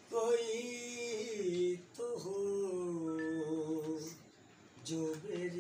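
A man singing a ghazal unaccompanied, drawing out long held notes that slide between pitches, in three phrases with short breaks between them.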